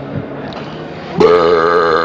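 A long, loud burp that starts suddenly just over a second in and holds a steady pitch.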